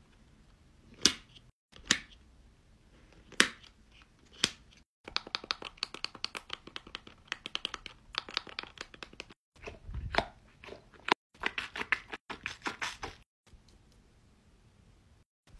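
Plastic fidget toys clicked by hand: a few single sharp clicks, then two runs of rapid clicking with a duller knock between them. It goes faint near the end.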